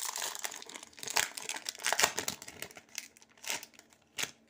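Wrapper of a football trading-card pack crinkling as it is torn open by hand, in irregular crackles, with louder crackles about a second, two seconds and three and a half seconds in.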